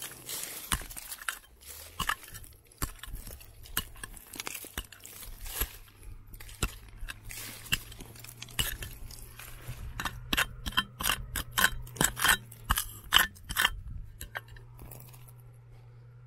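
Irregular sharp clinks and knocks of a digging tool on rock and quartz crystal being worked out of a crack. They come faster about ten seconds in and stop shortly before the end.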